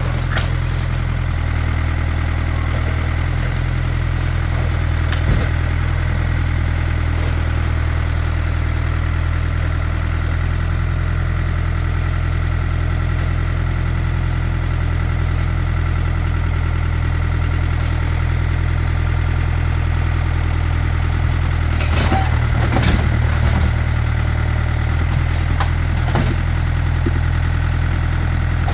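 Farm tractor engine running steadily at an even speed, with a cluster of sharp knocks and clanks near the end.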